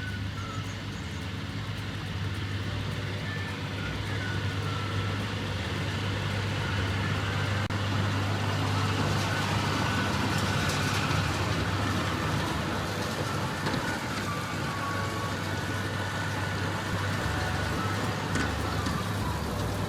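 Tractor engine running steadily as it pulls a CLAAS round baler through hay, growing louder over the first ten seconds or so and then holding level.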